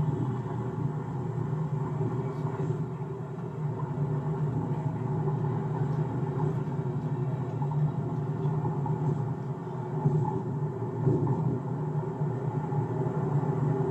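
A car driving on a city street: a steady low rumble of engine and tyre noise.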